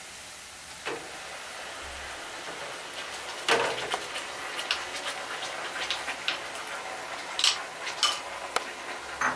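Onions frying in hot mustard oil sizzle steadily as ground masala paste is scraped in from a bowl and stirred with a spatula. Knocks and scrapes of the spatula and bowl on the pot come through the sizzle; the loudest is about three and a half seconds in.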